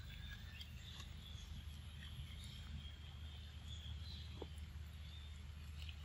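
Faint outdoor ambience: a thin, high, wavering chirring, with a few faint ticks, over a low steady hum.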